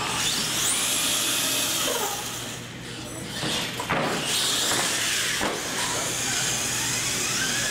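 Electric RC monster truck running on a concrete floor, its motor whining up and down in pitch with the throttle over the hiss of its tyres, with a sharp knock about four seconds in as it goes over a jump ramp.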